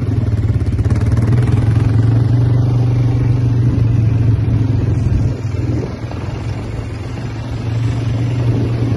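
Quad bike engine running steadily as the bike is ridden over sand, a loud low drone. It drops off about five and a half seconds in and builds again near the end.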